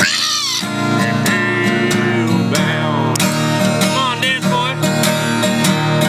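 Acoustic guitar music, strummed, with a melody line that slides up and down in pitch near the start and again about three seconds in.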